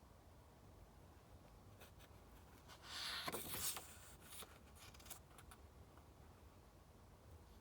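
A paper page of a book being turned: one short rustle about three seconds in, followed by a few light taps.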